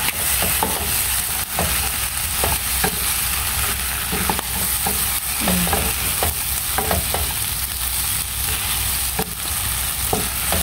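Chicken feet adobo sizzling in a pan, with a steady hiss and scattered pops and crackles, as it is fried down with little sauce left until browned.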